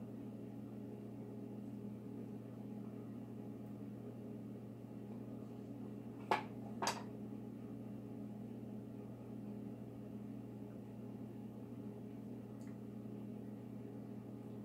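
Steady low electrical hum of kitchen background, broken by two short sharp clicks about half a second apart near the middle.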